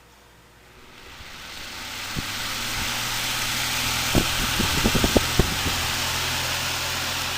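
Fisher-Price 7-inch desk fan, running on a salvaged microwave shaded-pole motor on a light dimmer, turned up to high: it spins up from standstill over about two seconds into a steady rush of air over a low motor hum. A few sharp ticks come in the middle.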